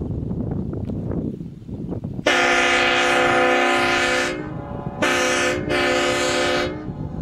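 Homemade multi-trumpet, train-style air horn set blown from a compressed-air tank, sounding a loud chord of several steady notes. One blast of about two seconds is followed by two shorter blasts in quick succession.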